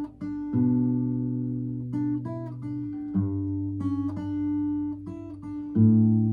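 Guitar music: single notes picked over held low bass notes, with the bass and chord changing about every two and a half seconds.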